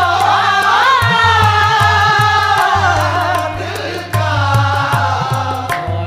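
Background music: qawwali-style singing, a voice holding long, ornamented notes over tabla.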